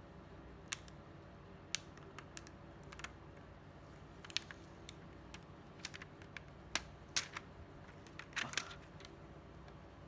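Faint, irregular light clicks and taps of small hard parts being handled, about a dozen of them, with a short scraping rustle near the end.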